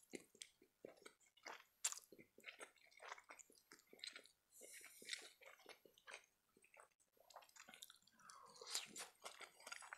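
Quiet, close-up chewing of a mouthful of spaghetti: soft wet mouth clicks and smacks at an uneven pace.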